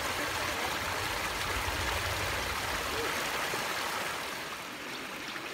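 Small bush creek spilling over a low pile of rocks: a steady splashing rush of running water.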